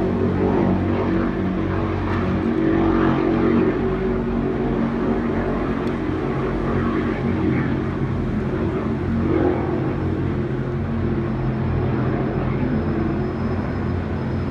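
Steady drone of distant engines, several held low tones together with a wash of noise.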